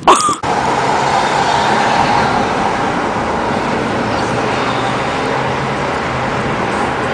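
Steady road and engine noise heard from inside a moving car, opening with a short loud noise.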